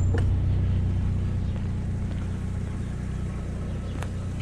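GMC Sonoma pickup's engine idling steadily, getting a little quieter in the first second. A light click sounds just after the start and another near the end.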